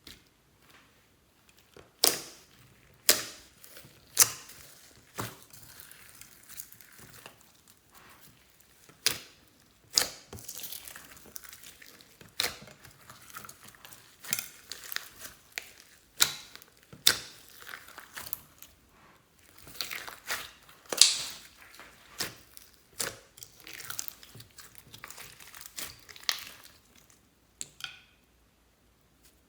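Slime being squished and kneaded by hand, with sharp, sticky pops and crackles at irregular intervals.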